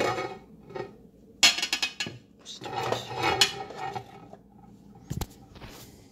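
Glass pan lid with a steel rim clanking and clattering as it is lifted off a stainless-steel skillet and handled. There are several bursts of clatter in the first three and a half seconds and a single sharp click about five seconds in.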